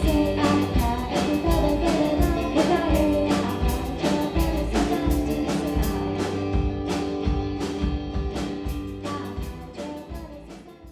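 Rock music with electric guitar, drums and singing, fading out steadily over the last five seconds.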